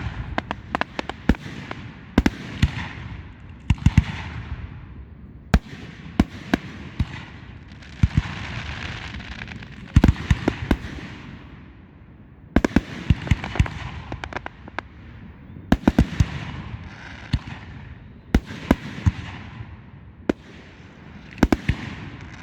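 Aerial fireworks going off in a steady barrage: many sharp bangs, several a second at times, each often followed by a crackling hiss that fades away.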